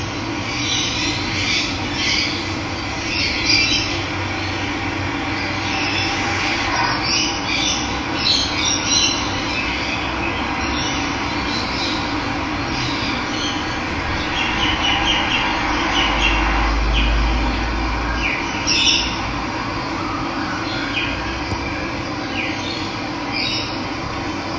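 Steady rush of running water, with birds chirping and calling throughout.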